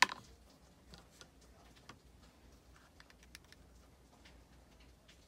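A sharp click, then scattered faint clicks and taps from handling a dropper bottle of acrylic ink.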